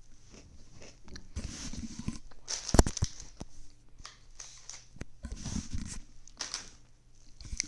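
Close-miked biting and chewing of crunchy food, in irregular bursts of crunches, with one sharp, loud crack a little under three seconds in.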